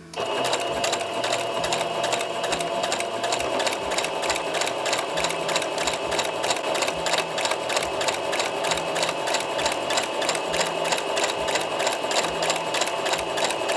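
Singer Patchwork sewing machine with a walking foot fitted, stitching steadily through a layered quilt sample. The needle and the walking foot go up and down in a fast, even rhythm over a steady motor hum. It starts up right at the beginning and runs at one even speed.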